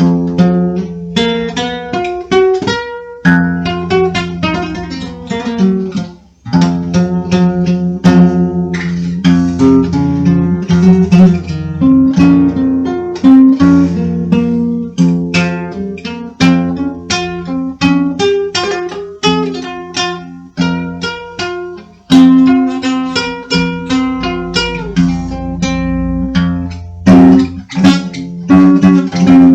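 Acoustic guitar music, plucked and strummed chords with many sharp note attacks, briefly dropping out about six seconds in and again near twenty-two seconds.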